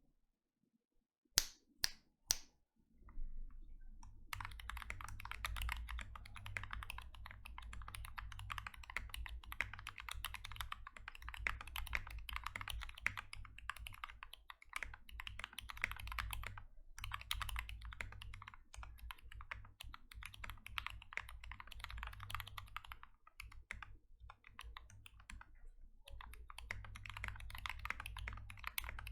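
Typing on a Glorious GMMK TKL mechanical keyboard with lubed Gateron Brown tactile switches, foam-dampened case and PBT Cherry-profile keycaps. A few separate key clicks come about two seconds in, then fast continuous typing with brief pauses.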